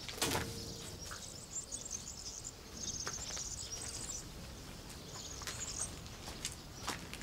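Countryside ambience: high chirping from small birds and insects in short bursts, with a few light knocks and clicks from handling objects, the sharpest just after the start.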